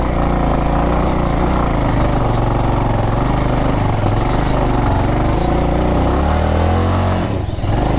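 Motorcycle engine running with the throttle worked up and down, its pitch rising and falling unevenly, with a brief dip about seven and a half seconds in.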